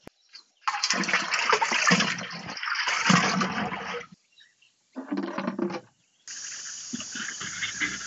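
Liquid poured from a jug into a plastic barrel reservoir, gushing and splashing for about three seconds. After a brief splash about five seconds in, the hiss of a watering can's sprinkler rose spraying onto a seed bed starts about six seconds in and holds steady.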